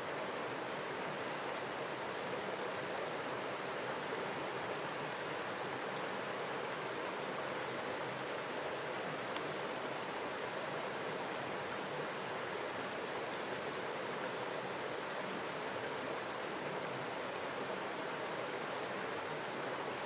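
Flowing stream water, a steady, even rushing.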